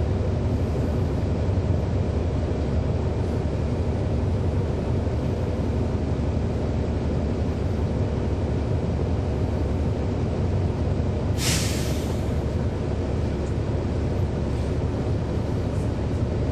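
2011 NABI 40-foot transit bus under way, heard from on board: its Cummins ISL9 inline-six diesel drones steadily. A short burst of air hiss comes about eleven seconds in.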